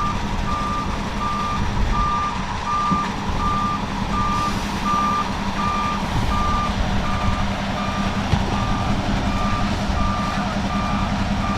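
A concrete mixer truck's backup alarm beeps steadily, a little more than once a second, while the truck's engine runs steadily underneath.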